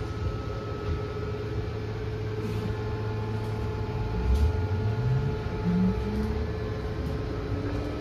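Cabin noise inside a 2023 New Flyer XE40 NG electric bus on the move: a steady hum and road rumble, with a whine that rises in pitch from about halfway through as the bus gathers speed.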